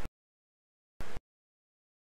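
Audio dropping out to dead silence, broken by two short snatches of steady rushing river water from the riffles, each under a quarter of a second: one at the very start and one about a second in.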